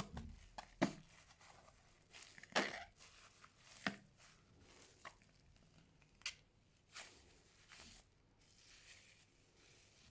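Fluffy slime being squeezed and stretched by hand, giving irregular sticky pops and crackles, about eight of them a second or so apart.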